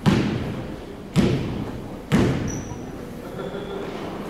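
A basketball bouncing on the hardwood gym floor three times, about a second apart, each thud echoing through the large gym. A couple of faint short squeaks, typical of sneakers on the court, follow near the end.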